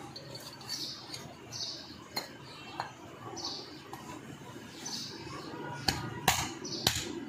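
Metal parts of a starter motor clinking as its aluminium end cover is fitted over the through-bolts: a few sharp clicks, the loudest near the end. Birds chirp in the background about once a second.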